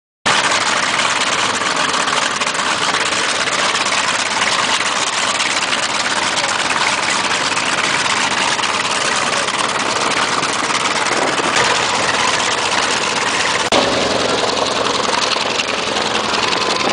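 Jet aircraft engine running steadily, a loud, even rushing whine, with a short knock about fourteen seconds in.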